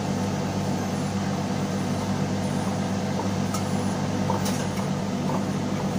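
Steady low hum of running machinery in a boat's engine room, with a few faint clicks as the oil filter is turned by hand.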